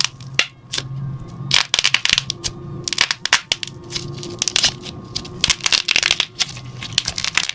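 Quick, irregular clicks in short runs with gaps between them, like taps on a phone's touch keyboard while a chat message is typed.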